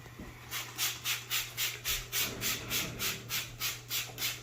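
Cleaner sprayed from a trigger spray bottle in quick repeated squirts, about four a second, each a short hiss.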